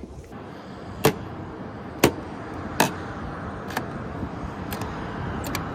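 A steady, noisy mechanical hum that slowly grows louder, with about six sharp clicks or knocks roughly a second apart.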